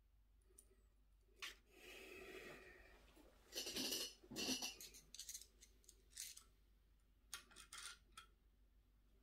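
Quiet handling of small metal guitar strap-lock parts on a desk mat: scattered light clicks and taps, with a few short rustling noises around the middle, the loudest a little before halfway.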